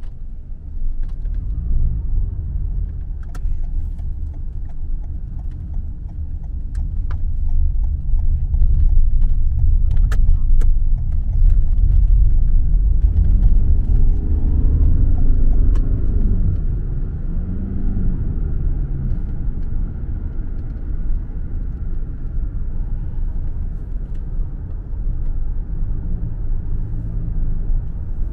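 Road and engine noise inside a moving taxi's cabin: a steady low rumble that swells for a while in the middle, where a pitch rises and falls twice as the car speeds up and eases off.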